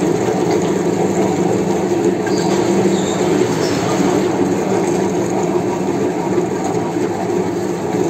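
Meat mincer running steadily, grinding meat out through its plate, with an even machine hum.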